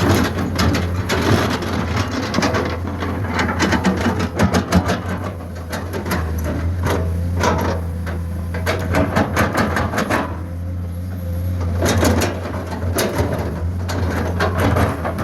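Komatsu PC210 excavator's diesel engine running steadily under load, with frequent clanks and knocks of the bucket and dirt and stones as it digs and loads soil.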